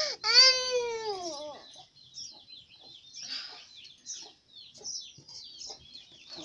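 A young girl crying, one loud wail falling in pitch over the first second and a half. Then a quieter run of many short, high, falling chirps of small birds, several a second.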